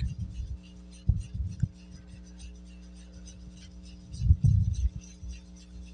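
Paintbrush mixing paint in a plastic palette: faint light scratching and ticking, with dull low thumps about a second in and a louder cluster around four seconds, over a steady hum.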